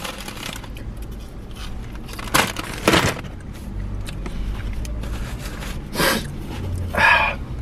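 Brown paper takeaway bag being handled and crumpled, with a few sharp crinkles, over a steady low rumble.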